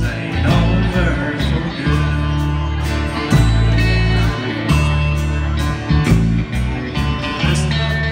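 Live country band playing with guitar, a strong bass line changing note about every second and a steady drum beat.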